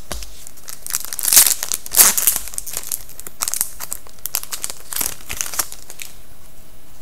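Wrapper of a 2011-12 SPx hockey card pack crinkling and tearing in the hands. Irregular loud rustles come about a second and a half and two seconds in, with lighter crinkles later.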